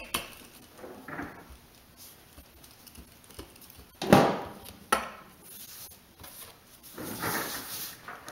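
Wooden rolling pin rolling out bread dough on a wooden tray: soft rubbing as it rolls, with knocks of wood on wood, the loudest about four seconds in, and a longer rolling stretch near the end.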